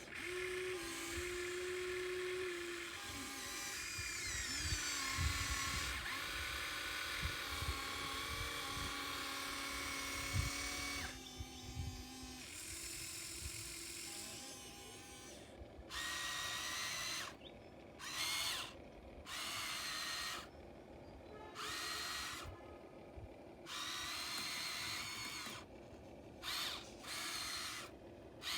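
Small electric motor of a radio-controlled model excavator's hydraulic pump whining at several shifting pitches with a few low knocks, then starting and stopping in short bursts of a second or two as the controls are worked.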